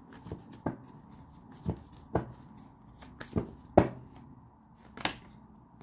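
Tarot cards being handled on a tabletop: about eight light, irregular taps and clicks. The sharpest come a little past the middle.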